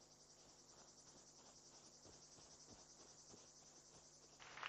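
Faint insects trilling, a fast pulsing high chirr, as in a jungle at night; a louder, busier sound comes in just before the end.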